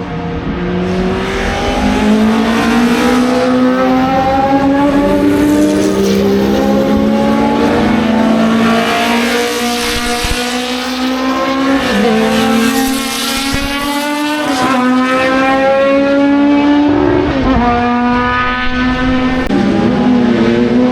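Historic racing car engines at full throttle, climbing steadily in pitch and dropping sharply at each upshift, several times in a row.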